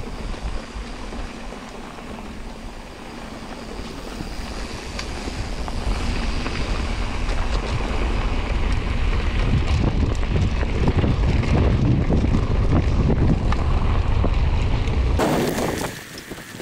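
Wind rushing over the microphone on a mountain bike as it rolls downhill, with scattered small clicks and rattles. The rumble grows louder from about six seconds in, as if the bike is picking up speed, and cuts off suddenly near the end.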